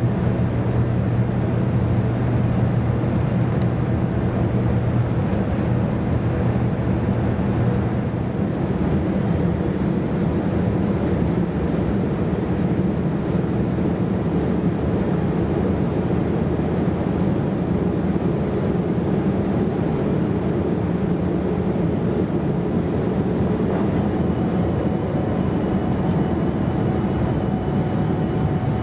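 Steady cabin drone of a Boeing 787-9 climbing after takeoff: its GEnx-1B turbofans running at climb power together with the rush of air along the fuselage, heard from a window seat beside the engine. A low hum in the drone fades about eight seconds in.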